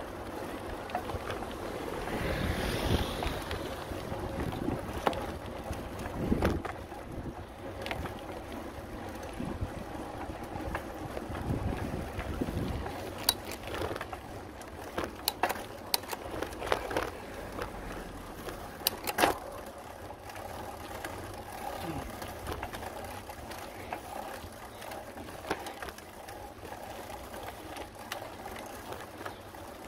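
Bicycle ride heard from a handlebar-mounted phone: wind buffeting the microphone over a steady road rumble, with a run of sharp clicks and knocks from the bike and mount over the bumpy street midway through.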